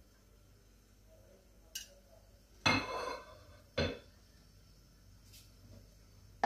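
Steel cookware clanking twice, with a brief metallic ring after the first clank, about two and three-quarter seconds and four seconds in, after a light click.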